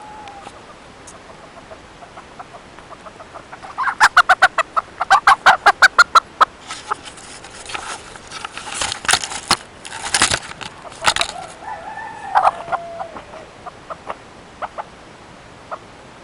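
Rooster giving a fast run of loud clucks, about five a second, for a couple of seconds, then a few seconds of rustling and scuffling noise, and a few more calls that die down to scattered faint sounds.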